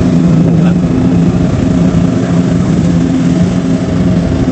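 Kubota DC70 Pro rice combine harvester running steadily under load as it cuts and threshes standing rice, a loud, even engine hum with no change in pitch.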